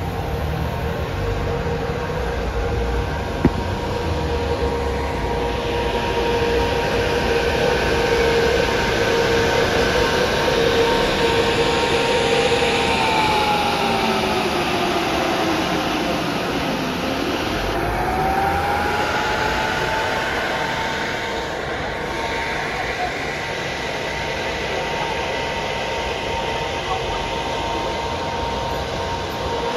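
A service bus running as it departs: a steady mechanical whine over a rumble, whose pitch sinks and then climbs back about halfway through. A single sharp click a few seconds in.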